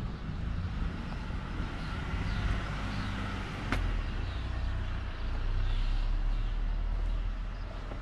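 A motor vehicle engine running close by, a steady low rumble that grows louder about five seconds in. A single sharp click comes near the middle.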